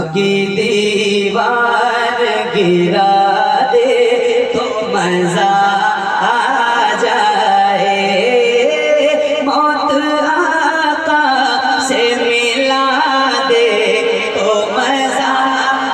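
A man singing a naat into a microphone, in long drawn-out notes that slide and waver in pitch.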